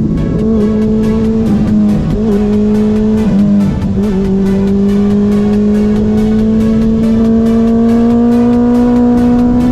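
Honda CB400 Super Four's inline-four engine and exhaust under way: the note dips and wavers a few times in the first four seconds, then climbs slowly and steadily as the bike gathers speed. Background music with a steady beat runs underneath.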